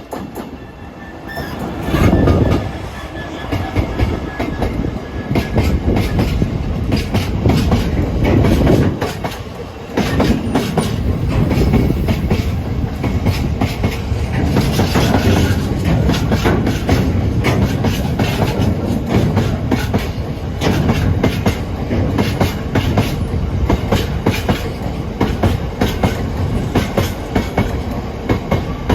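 Class 66 diesel-electric freight locomotive and its train of wagons passing, a heavy rumble with a steady run of wheel clicks over the rail joints. It gets loud about two seconds in and keeps going to the end.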